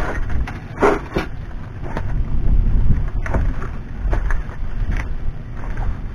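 Old wooden steps, weathered boards on a rusty metal frame, being shifted and stood upright: a series of short knocks and clatters, the loudest about a second in, over wind rumbling on the microphone.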